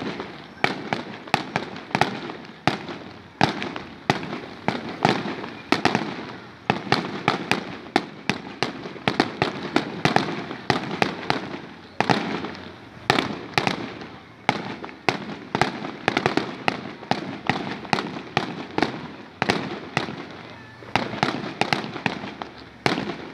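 A fireworks display: aerial shells bursting in a rapid, irregular run of sharp bangs, two or three a second, each trailing off in an echo.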